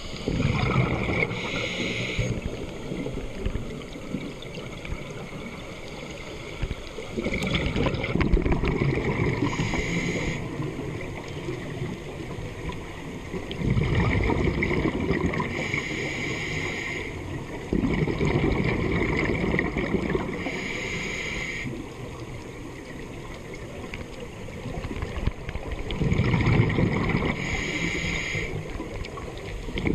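A scuba diver breathing through a regulator underwater, in slow repeating cycles several seconds apart. Each breath draws a hiss through the regulator, and each exhale sends out a rumbling gush of bubbles.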